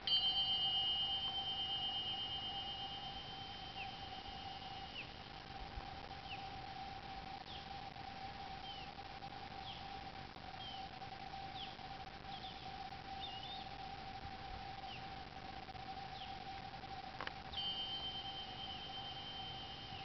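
A pair of Tibetan tingsha cymbals struck together, ringing in a high, bright chord that fades slowly over several seconds. They are struck again about 17 seconds in. Birds chirp briefly in between.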